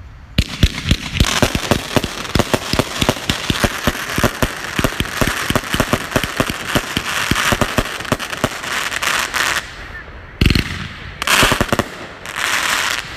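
Consumer fireworks cake firing: a fast, dense string of shots and crackling star breaks for about nine seconds. Then a louder bang and two short bursts of crackle near the end.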